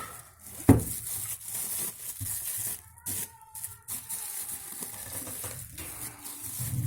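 Handling noises from a vacuum flask being unboxed: a sharp knock just under a second in, then irregular scraping, rustling and light clatter.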